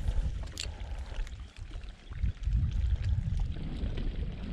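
Wind buffeting the microphone in an uneven low rumble, with water lapping against a small boat's hull and a few light clicks about half a second in.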